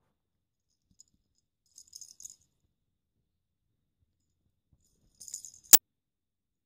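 A small plastic lattice-ball cat toy rattling as a kitten bats it: one short high rattle about two seconds in, another about five seconds in, followed at once by a single sharp click, the loudest sound.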